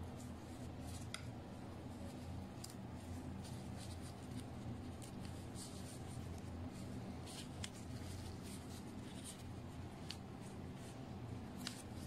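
Hands in plastic gloves and a small metal utensil handling grilled chicken on flatbread over paper: soft rustling, light scrapes and scattered small clicks, over a steady low hum.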